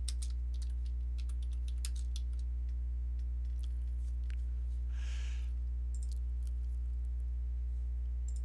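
Scattered clicks of a computer keyboard and mouse, with a brief soft rustle about five seconds in, over a steady low hum.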